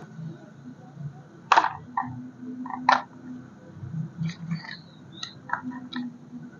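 Packaging being handled: a series of sharp clicks and light knocks, the two loudest about one and a half and three seconds in, with quieter clicks and short scrapes after.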